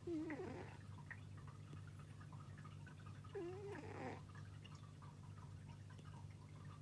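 A sleeping pet snoring: two short, wavering, pitched snores about three seconds apart, over a steady low hum.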